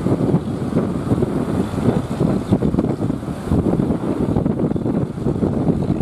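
Wind buffeting the microphone over the wash of breaking surf, a rough, gusting rumble throughout.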